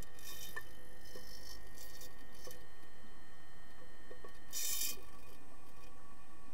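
Muffled underwater pool sound during an underwater hockey game: a steady hum with several steady tones, scattered faint clicks, and short bursts of hiss, the loudest a little before the end.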